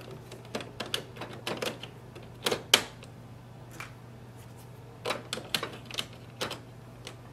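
Ink cartridges being pressed down into the print-head carriage of an Epson XP-5200 printer, giving a series of sharp plastic clicks and knocks. The loudest pair comes about two and a half seconds in, and another cluster comes a couple of seconds later. The click is the lock sound that shows a cartridge is seated properly.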